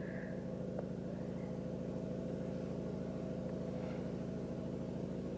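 Steady low hum of a car's engine and running gear heard from inside the cabin.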